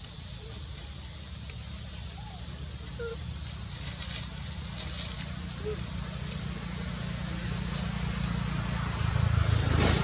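Forest insects buzzing in one steady, very high-pitched tone, over a low rumble, with a few faint short chirps.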